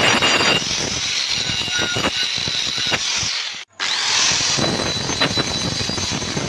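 Angle grinder with a flap disc grinding the edge of a metal plate clamped in a vise: a steady, loud grinding with a high whine. The sound cuts out for a moment about halfway through, then the grinding goes on.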